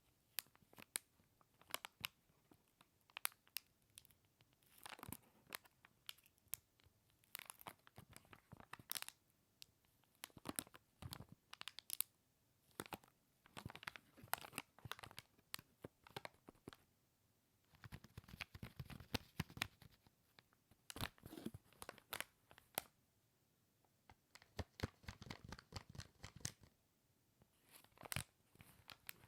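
Plastic packaging bag of a small mascot toy being handled and torn open by hand: close crinkling and tearing crackles in irregular clusters with brief pauses.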